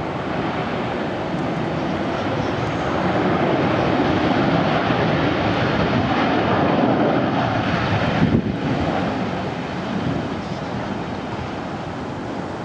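Boeing 737 airliner's jet engines roaring on the landing rollout, swelling for a few seconds as the plane decelerates, then dropping away about two thirds of the way through.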